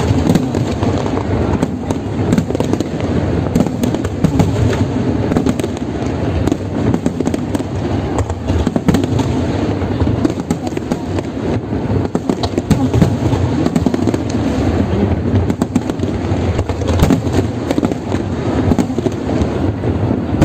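New Year fireworks display going off in a dense, continuous barrage of bangs and crackling, with no lull.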